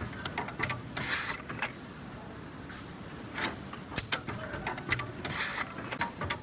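Automatic bottle-line machinery running: irregular sharp mechanical clicks and a few short hissing bursts over a steady machine hum.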